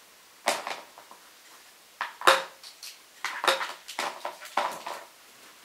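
Painting gear clinking and knocking: palette, water pot and brush or roller being handled while more water is mixed into acrylic paint. A dozen or so irregular sharp clinks, a few with a short ring, the loudest about two seconds in.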